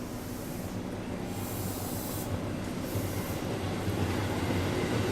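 Electric commuter train running on the track with a low steady hum, its sound growing steadily louder.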